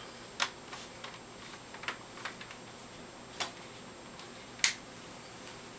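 Plastic clips of an HP G7 laptop's screen bezel snapping into the lid as it is squeezed on by hand: a handful of sharp clicks, the loudest two in the second half.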